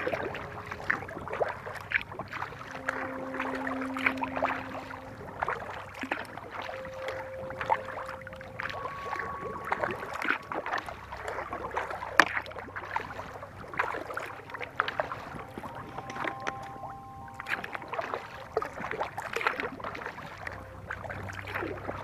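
Kayak paddling on calm water: the paddle blades dipping and splashing, with irregular drips and small knocks.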